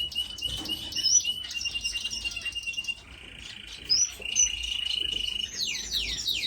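A room of caged finches chirping and singing together: long, rapid, high trills, then near the end a run of quick falling whistles.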